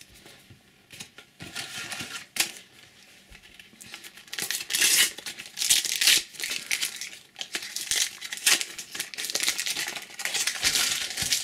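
A paper sticker packet being torn open and its wrapper crinkled, with the stickers handled. After a few light clicks, a run of ripping, rustling bursts starts about four seconds in.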